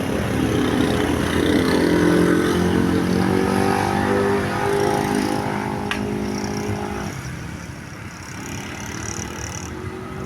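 Bus's Basuri 'telolet' musical horn sounding a sustained multi-tone blast that cuts off abruptly about seven seconds in, over the bus's engine, which runs on more quietly afterwards.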